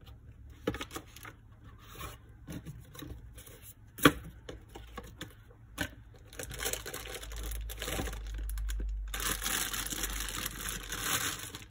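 Packaging being handled with scattered clicks and a sharp knock about four seconds in, then a clear plastic bag wrapped around a CPU cooler crinkling steadily as it is pulled off, through the second half.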